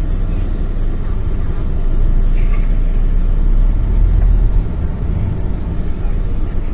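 Sleeper bus's engine and road noise rumbling steadily inside the passenger cabin while driving, getting a little louder about two seconds in.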